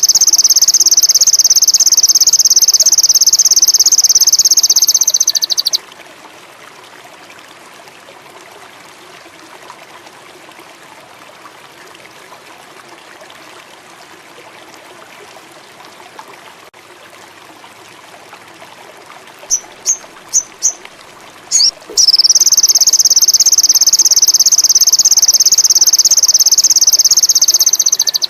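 Sogon songbird singing a long, loud, very high-pitched buzzing trill, twice, each lasting about six seconds, with four short high chirps just before the second. Between the songs a steady faint trickle of running water and insects.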